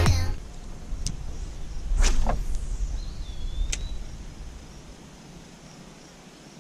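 A cast with a spinning rod and in-line spinner: a whoosh about two seconds in as the line goes out, with a sharp click about a second in and another near the fourth second, and a brief thin whistle just before it. Afterwards only faint outdoor background.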